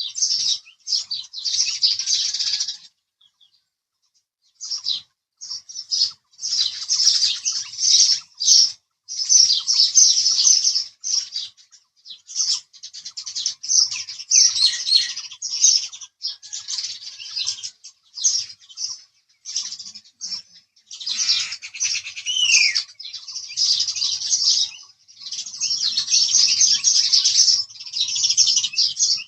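House sparrows chirping in busy, closely packed runs of calls, with a silent gap of about a second and a half a few seconds in.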